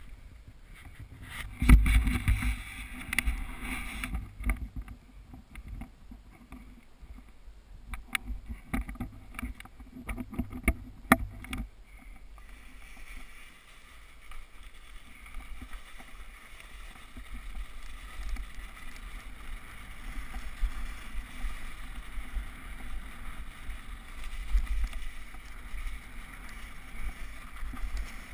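Downhill mountain bike ride on a snowy trail, heard through a GoPro Hero HD: sharp knocks and rattles of the bike over bumps during the first twelve seconds or so. After that comes a steadier rushing rumble of wind on the microphone and the ride.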